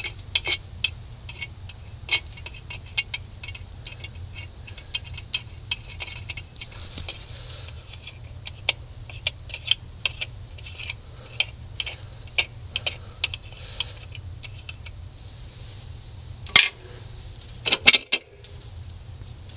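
Light metallic clicks and clinks of a truck's air cleaner being taken off the carburettor, with two louder knocks near the end, over a steady low hum.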